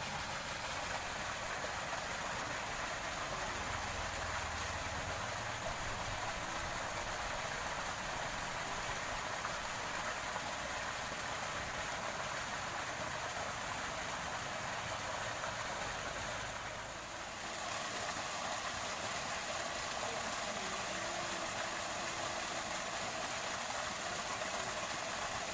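Small waterfall pouring into a stream: a steady rush of water, briefly a little softer about two-thirds of the way through.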